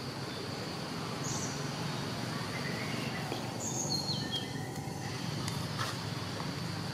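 Outdoor forest ambience: a steady high insect drone over a low, even rumble, with a few short high bird chirps about a second in and a short run of falling chirps around four seconds in.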